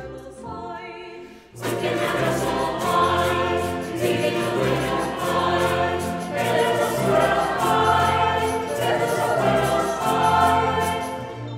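Mixed choir singing a Baroque Mexican villancico in guaracha style, with a low bass line and percussion. After a quieter opening of fewer voices, the full ensemble comes in louder about a second and a half in, with percussion strikes in a steady rhythm.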